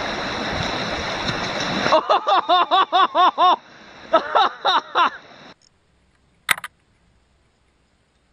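Rushing river water for about two seconds, then a person laughing in two quick runs of repeated "ha" calls that stop abruptly about five and a half seconds in. A single sharp click follows.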